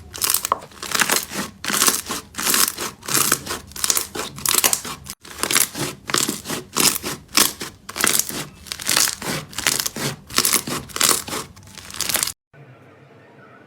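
Slime being pressed and worked by hand, making a quick run of short noisy pops about two or three a second, with a momentary break about five seconds in. It cuts off abruptly near the end, leaving only a faint low hum.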